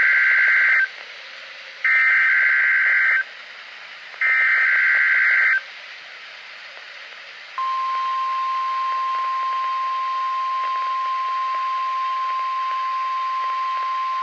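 NOAA Weather Radio test alert: three bursts of harsh digital data screech, each about a second and a half long, over steady radio hiss. These are the Specific Area Message Encoding header. About halfway through, the steady single-pitched 1050 Hz tone alert begins and holds.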